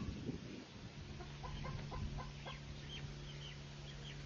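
Chickens clucking, a run of short repeated calls, over a low steady hum.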